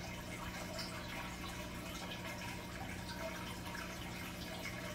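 Aquarium filter running: water trickling and dripping into the tank over a steady low hum.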